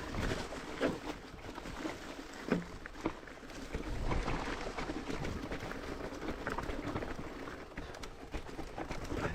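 Mountain bike being ridden along a dirt singletrack trail: a continuous rumble of tyres on the ground, broken by frequent small clicks and knocks from the bike rattling over the rough surface.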